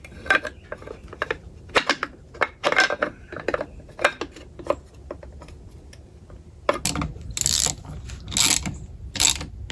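Metal clinks and sharp clicks of parts and hand tools, then several short ratchet runs near the end, as the valve cover is fitted and bolted down on a YZ400F engine.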